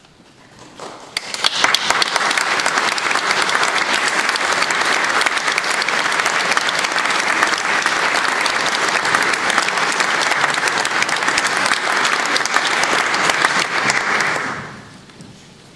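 Audience applauding: dense clapping that builds about a second in, holds steady, and dies away near the end.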